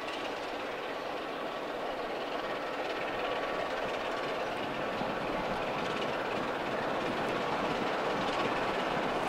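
Diesel locomotive moving slowly toward the listener, its engine noise steady and growing gradually louder as it approaches.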